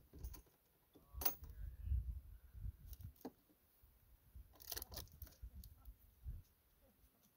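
Wind buffeting the microphone in low, uneven gusts, with a few sharp clicks and rustles of handling noise about a second in, around three seconds in, and near five seconds.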